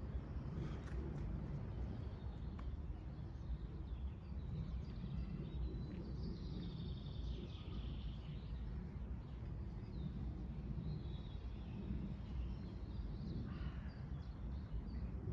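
Birds chirping now and then over a steady low outdoor rumble, the chirps busiest about six to eight seconds in.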